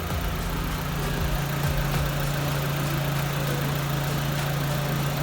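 Car engine idling with a steady, even low hum, running so that its alternator is charging the battery.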